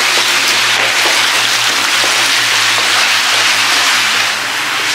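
Water rushing through a concrete culvert pipe, a steady hiss with echo from the round tunnel walls.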